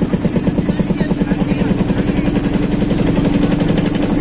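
Boat engine running steadily with a fast, even chugging beat. The beat smooths into a steadier hum over the second half.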